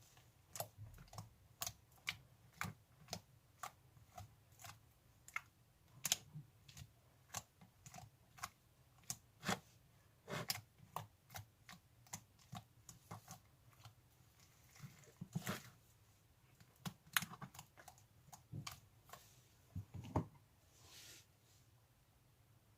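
Slime being squeezed and poked by hand, making an irregular series of sharp sticky clicks and pops, roughly one or two a second, that stop about twenty seconds in.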